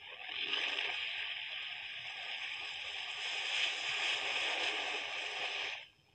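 Rushing, splashing water: a steady noise that starts suddenly and cuts off abruptly near the end.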